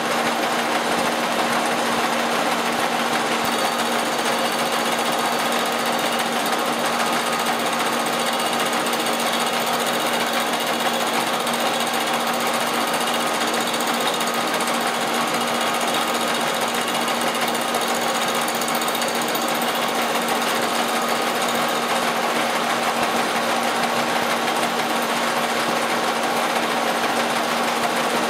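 Milling machine taking a cut across the top of a metal truck casting, a steady cutting noise over the constant hum of the machine.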